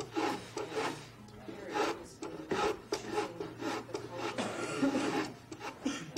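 A hand plane shaving the edge of a cedar strip in repeated short strokes, about two a second in an uneven rhythm.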